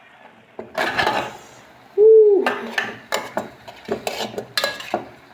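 Kitchen utensils and cookware clattering: a spoon knocking and scraping against a pot, with quick taps at about three to four a second. A brief loud pitched tone sounds about two seconds in.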